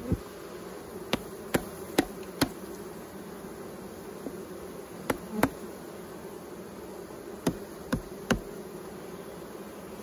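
Honeybees buzzing steadily over an open hive, a continuous hum. About ten sharp clicks and knocks come in small clusters over it.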